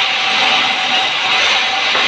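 Sawmill saw cutting through a log: a loud, steady hissing whir with a faint steady whine underneath.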